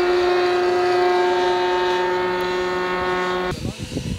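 Radio-controlled model airplane's motor running at a steady, high-pitched drone in flight. It cuts off abruptly near the end, leaving an uneven rumbling noise.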